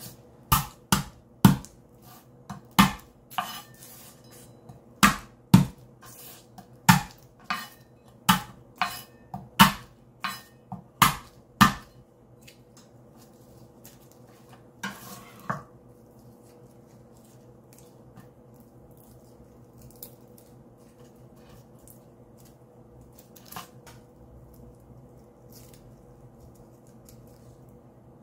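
Chef's knife blade smashing garlic cloves against a bamboo cutting board: about fifteen sharp knocks in the first twelve seconds. Then soft rustling as the papery skins are peeled off the crushed cloves, over a faint steady hum.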